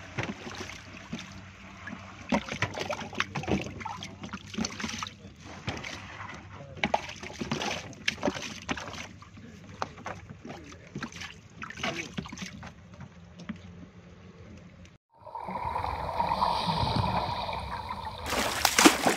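Water splashing and sloshing in a tub of live flathead lobsters, with frequent sharp clicks and knocks over a steady low hum. About fifteen seconds in it breaks off for a short logo sound that builds to a loud burst near the end.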